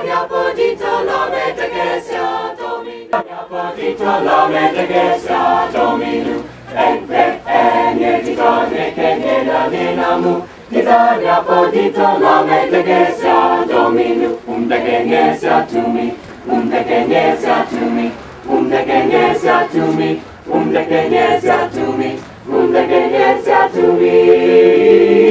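College chamber choir singing a cappella, in phrases with brief pauses between them, in a language other than English.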